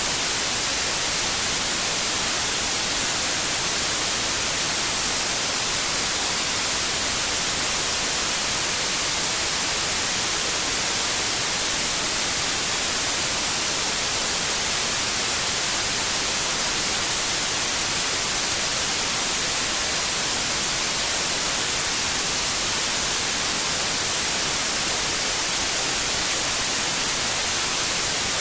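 Steady synthetic white noise: an even, unbroken hiss, brighter in the highs, with no change in level.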